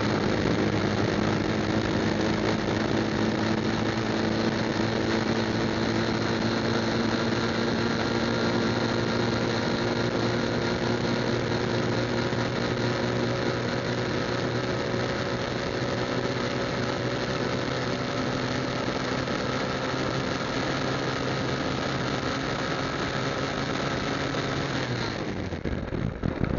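Motorcycle engine running steadily on the move, its note sinking slowly, then dropping away sharply near the end.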